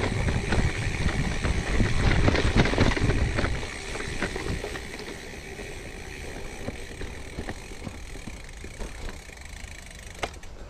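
Gravel bike rolling over a rough forest track, tyres rumbling and crunching with small rattles and clicks from the bike. It is loud for the first four seconds or so, then quieter as the bike slows.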